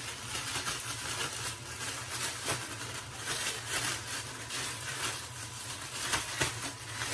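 A plastic bag holding cod pieces and maize flour being shaken and crinkled to coat the fish: an irregular rustling made of many small crackles.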